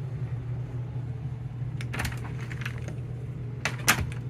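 Key fob being handled in the hand: light clicks about two seconds in and a short clatter near the end, over a steady low hum.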